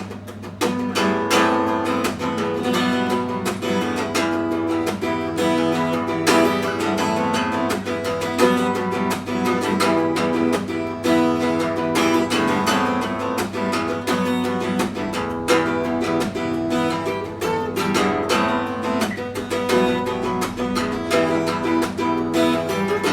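Instrumental break of a song, led by strummed and plucked acoustic guitar.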